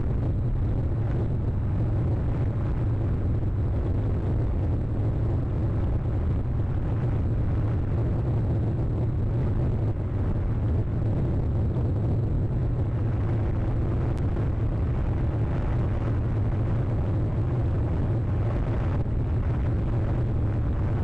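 A steady low rumble with a faint hiss over it, unchanging throughout.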